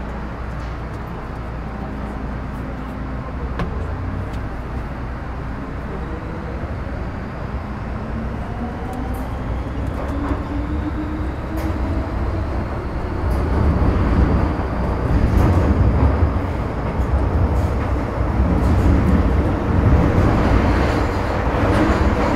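Metro Cammell M-Train electric multiple unit with GEC GTO chopper traction accelerating away from a station: the chopper and traction-motor whine rises steadily in pitch, under a rumble of running noise that grows louder from about halfway through.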